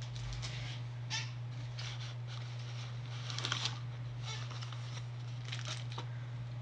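Rustling and light clicking of the box contents and plastic packaging being handled, in short scattered bursts over a steady low hum.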